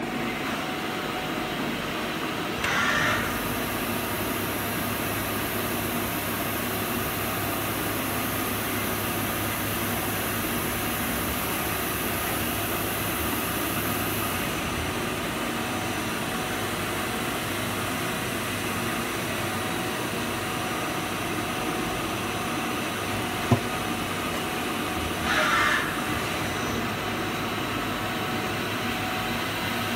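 Nakamura-Tome TW-20 CNC turning lathe running with a steady mechanical hum, with a high hiss added for about the first half. Two short hissing bursts come about 3 seconds in and near the end, with a sharp click shortly before the second.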